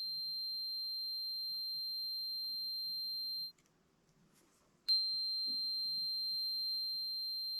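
A multimeter's continuity beeper sounding one steady high beep while its probes bridge an SST mechatronics solenoid, showing the solenoid coil has continuity. It stops about three and a half seconds in and starts again about a second and a half later.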